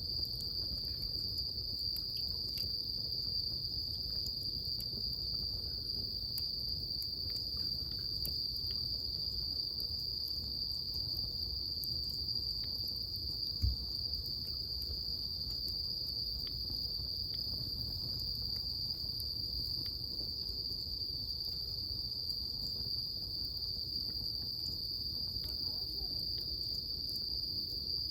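A steady, high-pitched chorus of crickets, with faint scattered crackles from a wood bonfire and one dull thump about halfway through.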